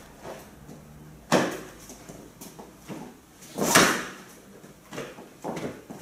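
Thumps and slaps of a two-person martial-arts strike drill on a gym mat, from sharp steps and a hand strike landing. There are two loud hits, one just over a second in and a stronger one near four seconds in, with lighter knocks a little later.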